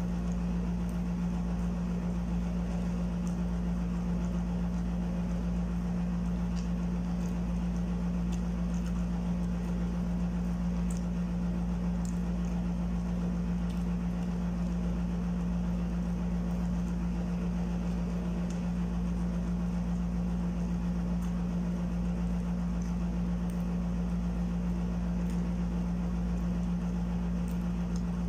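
A steady low hum holding one constant pitch, with faint clicks of chewing on a fried hash brown now and then.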